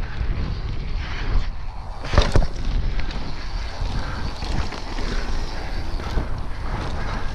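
Wind rushing over the microphone and tyres rolling over a dry dirt trail as a Yeti SB150 full-suspension mountain bike descends at speed, with two sharp knocks close together a little over two seconds in as the bike hits bumps.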